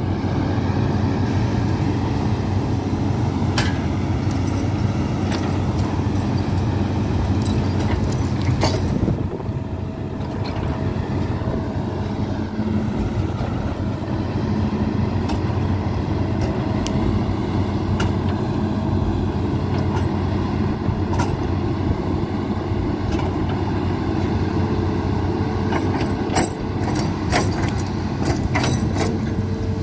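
A vehicle engine running steadily at an even speed, a low hum, with scattered clicks and rattles over it.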